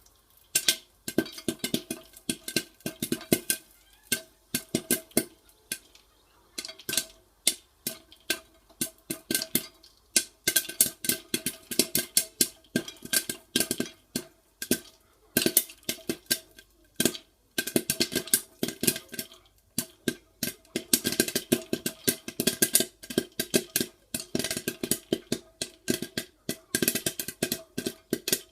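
Popcorn kernels popping rapidly in a covered cast-iron ceaun: a dense, irregular run of sharp pops striking the lid, each with a short metallic ring. The popping thins out briefly a couple of times.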